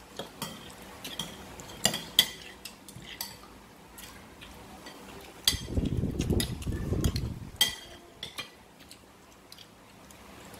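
Metal spoon clinking and scraping against ceramic plates and bowls while scooping rice and chicken, in scattered short clicks. About halfway through there is a low muffled rumble lasting a couple of seconds.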